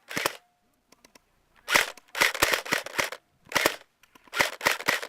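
Airsoft guns firing rapid bursts of sharp clicking shots: one short burst, a pause of about a second and a half, then several more bursts in quick succession.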